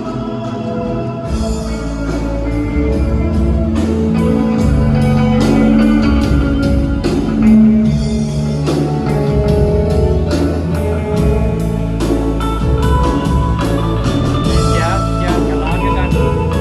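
Live band playing an amplified instrumental passage with electric guitar, bass and drum kit and a steady beat, as in a sound check.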